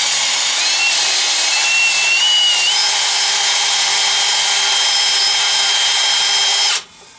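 Electric drill running a bit through a bolt hole in the rusted exhaust manifold flange, reaming out rust. The motor's whine rises a little over the first few seconds, holds steady, then stops abruptly near the end.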